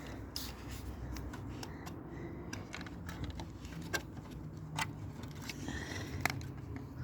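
Parts of a dismantled tower fan being handled: scattered sharp clicks and light scrapes of plastic and metal over a steady low rumble.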